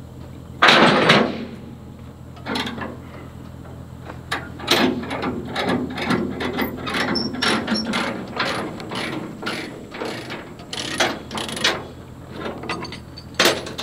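Tie-down chains and ratchet binders being released from an excavator on a trailer: a loud metal clank about a second in, then a run of irregular clanks and ratcheting clicks. A steady low engine hum runs underneath.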